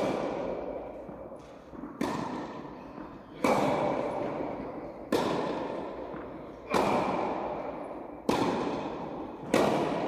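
Tennis ball struck by rackets in a rally, a sharp pop about every one and a half seconds, seven in all, each hit ringing on in the echo of a large indoor tennis hall.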